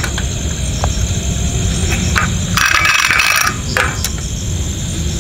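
Portable butane camping stove burning under a small metal pan of cooking oil as it heats, with light metallic clinks of the pan handle against the stove and a brief hiss of about a second a little past halfway. Crickets chirp steadily in the background.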